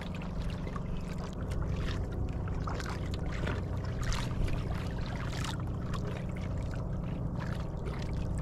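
Small boat engine running steadily with a low, even hum, under an irregular hiss of wind and water.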